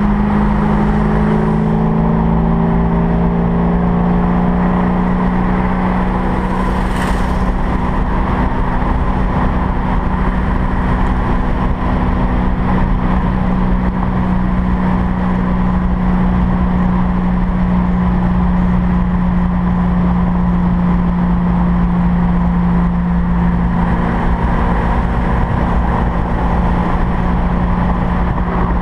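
1965 Mustang GT350R protouring car's engine running at a steady freeway cruise, heard from a hood-mounted camera over road and wind noise. A brief whoosh about seven seconds in.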